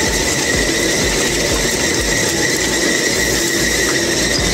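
M35A2 6x6 army truck driving slowly, heard beside its rear wheels: a steady low rumble of engine and tyres, with a constant high-pitched squeal over it.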